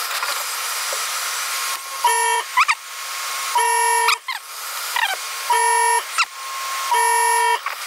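Hot air gun blowing with a steady hiss, heating a circuit board so that capacitor leads can be desoldered. Over it, an electronic beep sounds four times, about every second and a half, each lasting about half a second, with short rising chirps in between.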